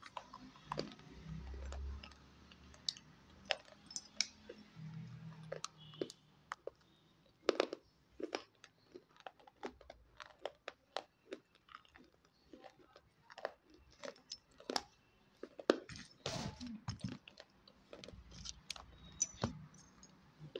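Sharp, irregular crunching and chewing of dry, hard pieces of broken unglazed terracotta clay pot being bitten and chewed.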